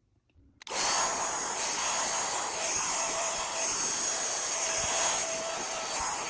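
Small cordless handheld vacuum cleaner switched on under a second in, its motor running with a steady high whine and airy hiss.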